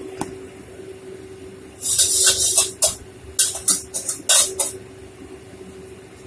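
Oil heating in a wok over a gas flame, crackling and spitting in a run of short, irregular bursts for about three seconds, over a steady faint hum.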